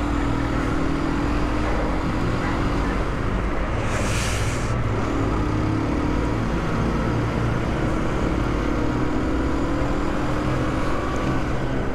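Aprilia RS 125's single-cylinder four-stroke engine running steadily at low city speed, its pitch drifting gently with the throttle, over a low rumble of wind and road noise. A brief hiss about four seconds in.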